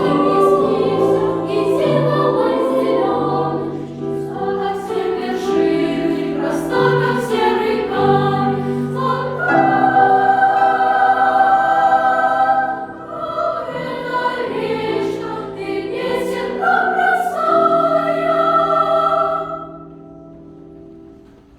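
A choir singing a song in several parts, closing on a held chord that fades away near the end.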